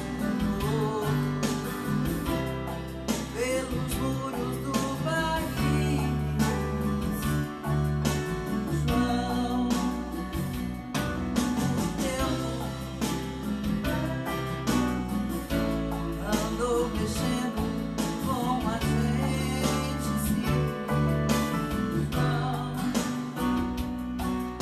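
A woman singing a melody into a studio microphone over a guitar-led backing track.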